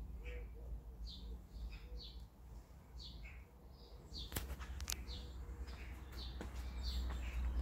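Garden birds chirping over and over in short, high notes, with a few sharp clicks about four seconds in and a low rumble underneath.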